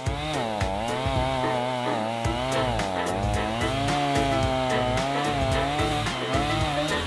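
Chainsaw running and cutting, its engine pitch dipping and rising as the bar loads and frees in the wood, with background music underneath.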